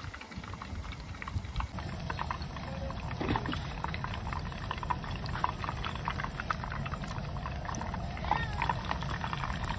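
Oysters deep-frying in hot oil in a pan, the oil sizzling with a steady dense crackle.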